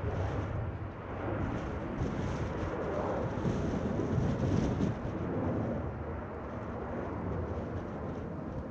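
Dassault Falcon 7X business jet's three turbofan engines at takeoff power as it lifts off and climbs away: steady jet noise, loudest about four seconds in, then easing slightly as it recedes.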